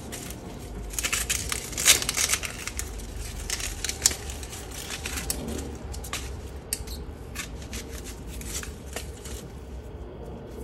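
Onions being prepared by hand: crisp, irregular crunching and crackling strokes, bunched together at times, of onion being cut and handled.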